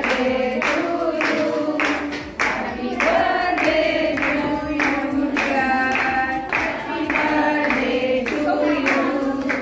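A group of women singing a birthday song together while clapping along in steady time, about two claps a second.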